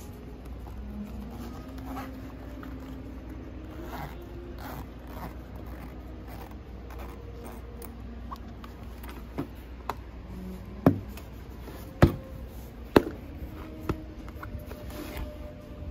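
Folding fabric solar-charger panel being handled and folded on a wooden table: cloth rustling and scraping, then a few sharp knocks in the second half, the loudest three close together about a second apart.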